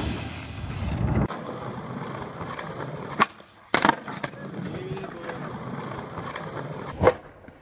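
Skateboard wheels rolling on concrete, with a few sharp clacks of the board striking the ground: one a little after three seconds, two close together just under four seconds in, and one near the end.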